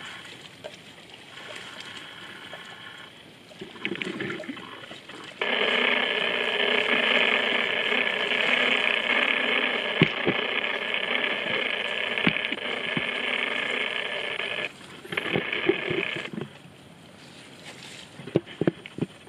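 A loud, steady trilling chorus of calling insects. It switches on abruptly about five seconds in and cuts off abruptly near fifteen seconds, with a fainter burst just after. Sharp clicks and snaps are scattered through it, several close together near the end.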